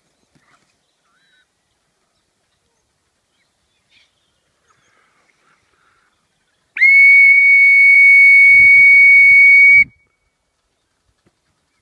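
A whistle blown as one long, steady, high note lasting about three seconds, starting about seven seconds in, as used to call pheasants in to feed. Before it there are only a few faint bird calls.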